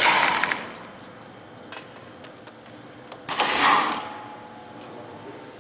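Two short bursts of a power tool about three seconds apart, unscrewing the hex screws on a rotary joint, with faint ticks of metal parts between them.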